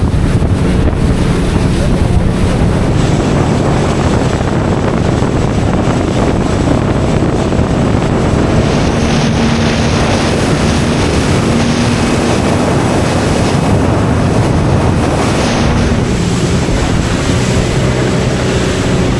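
Rigid inflatable boat underway, its engine running steadily under heavy wind buffeting on the microphone and the rush of water.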